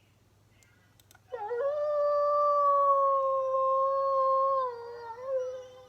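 Wolf howling: one long howl starting about a second in, held nearly level and sinking slightly in pitch, then a brief dip and rise near the end.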